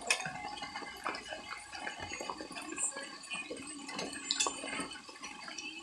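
Water dripping and trickling, with scattered light clicks and clinks.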